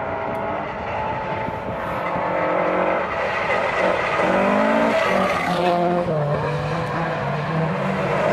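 Rally car engine approaching at high revs, growing louder, its pitch rising and dropping sharply several times with gear changes.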